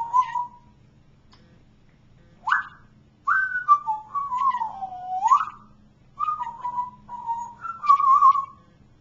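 Pet parrot whistling a tune of its own making in short phrases: a brief note, a quick upward whistle, then a phrase that swoops down and back up, and a final run of notes.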